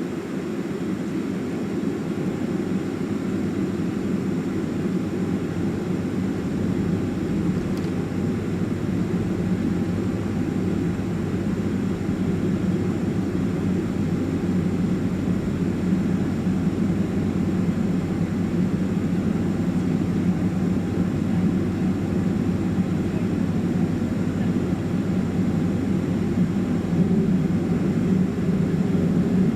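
Boeing 767-300 jet engines and airframe heard from inside the cabin during the takeoff run: a dense, steady noise that slowly grows louder, with a deep rumble coming in about seven seconds in.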